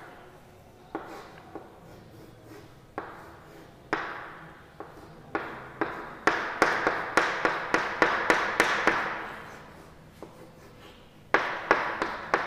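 Chalk writing on a chalkboard: sharp taps and short scratches as the chalk strikes and drags across the board, scattered at first, then a quick run of strokes in the middle and a few more near the end.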